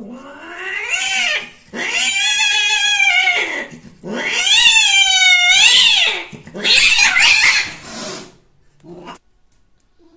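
Cat caterwauling while mating: four long, wavering yowls that rise and fall in pitch, then a short cry near the end.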